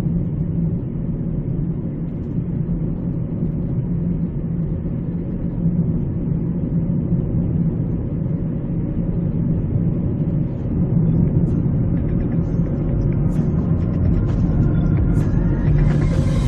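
In-cabin noise of a 2018 Honda Civic on the move: a steady low rumble from its 1.8 i-VTEC four-cylinder engine and the tyres on the road, growing a little louder about two-thirds of the way in. A few faint clicks come near the end.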